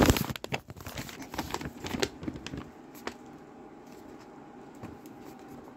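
Handling noise while unwrapping a parcel: a quick run of clicks, taps and rustles in the first few seconds, then it goes quieter over a faint steady hum.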